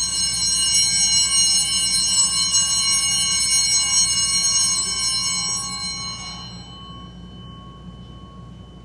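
Altar bell ringing out at the elevation of the chalice, a bright tone with many high overtones that fades away about six to seven seconds in.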